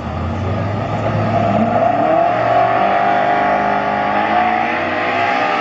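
Car engine accelerating hard: its pitch climbs over about a second, then holds high and steady.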